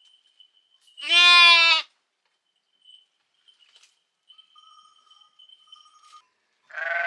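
Lambs bleating at a feeding trough: one loud, high bleat about a second in, and a rougher second bleat near the end.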